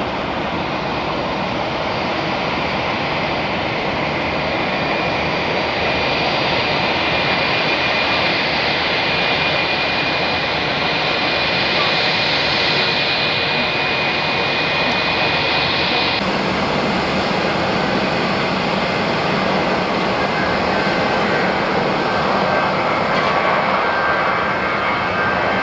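Airbus A320-family airliner's jet engines running at taxi power, a steady noise with a high whine. About sixteen seconds in it changes abruptly to a second Airbus A320's engines at takeoff thrust, fuller and somewhat louder, as it rolls down the runway and rotates.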